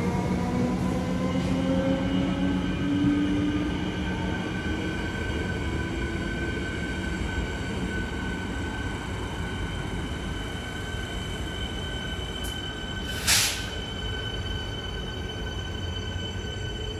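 Train pulling away through a station, its whine rising slowly in pitch over the first several seconds over a steady low rumble, with higher steady whines carrying on. A brief sharp hiss comes about 13 seconds in.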